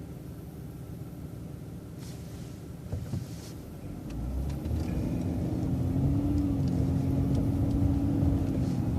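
City bus engine and road rumble heard from inside the bus, with a knock about three seconds in. From about four seconds in the engine grows louder and a steady drone sets in as the bus pulls away and speeds up.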